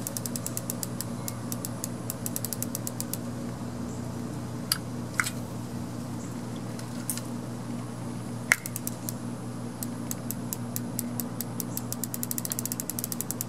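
Fishing reel being cranked to reel in a line, its ratchet clicking rapidly; the clicking slows and mostly stops in the middle, with a few separate louder clicks, then picks up again near the end. A steady low hum runs underneath.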